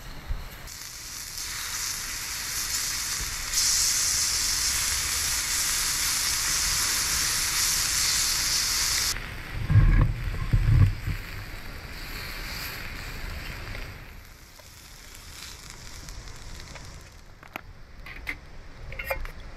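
Seasoned beef belly sizzling loudly in a small skillet over a wood fire. The sizzle cuts off suddenly after about nine seconds, followed by a couple of low thumps and then light clicks and taps of utensils on metal.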